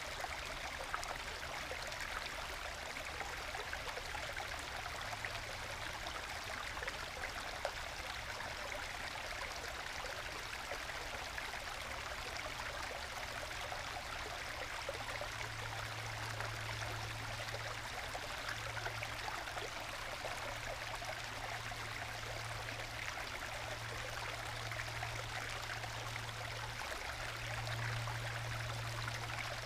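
Small forest stream trickling and gurgling steadily over small waterfalls in solid bedrock into plunge pools. A low steady hum lies underneath and grows louder about halfway through and again near the end.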